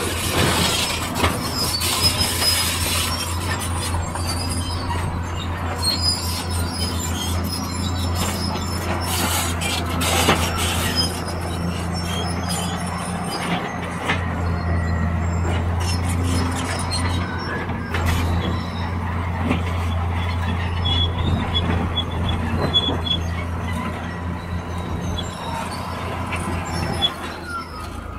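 Hydraulic excavator's diesel engine running with a steady low hum, with short metallic squeals and occasional clanks as rock is dug and loaded into a dump truck.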